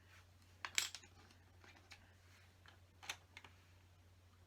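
Plastic LEGO bricks clicking as they are handled and fitted together: a sharp pair of clicks about a second in, then a few fainter single clicks.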